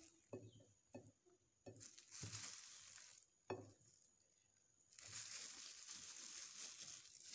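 Faint handling noise in near silence: two soft rustling stretches of about one to two seconds each, with a few light taps.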